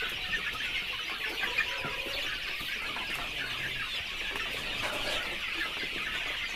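A crowded pen of about a hundred young Darag native chickens peeping and clucking all at once, a steady dense chatter of many high little calls.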